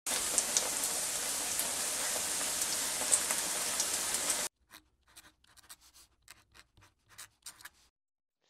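Oyster and chive pancake frying in oil in a pan: a steady sizzle with small pops, cutting off suddenly about four and a half seconds in. Then only a few faint, scattered ticks.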